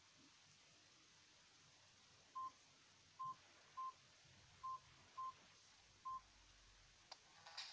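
Six short, identical keypad beeps from a button mobile phone as keys are pressed at an uneven pace. Near the end there is a click, and a ringtone begins to play.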